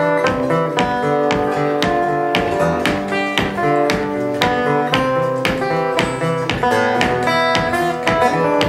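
Solo acoustic guitar playing an instrumental passage live, a quick flow of picked melody notes over a steady bass line, with no singing.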